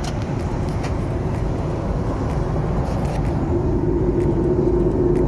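Steady rumble of a Boeing 737-8200's CFM LEAP-1B jet engines and airflow heard inside the cabin, growing slightly louder, with a low hum that strengthens about three and a half seconds in.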